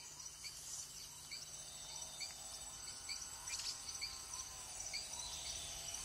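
Faint night chorus of crickets: a steady high trill with short chirps repeating about twice a second, and a few soft lower calls.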